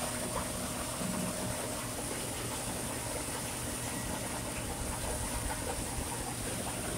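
Cement mixer truck's diesel engine idling steadily, with a steady high hiss over it.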